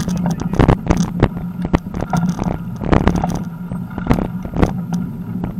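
Bicycle riding over rough, cracked asphalt: a steady rolling rumble with frequent sharp knocks and rattles as the wheels hit bumps.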